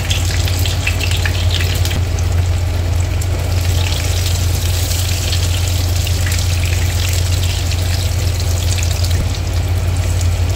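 Whole boiled, peeled potatoes sizzling and crackling in hot mustard oil in a frying pan, over a steady low hum.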